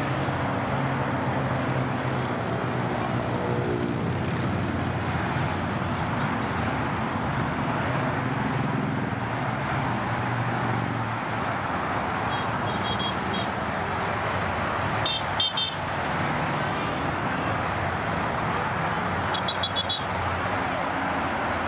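Motorcycle on the move along a motorway: engine running, its note shifting early on, under constant wind and road noise. Short high-pitched horn toots come in quick clusters about halfway through and again near the end.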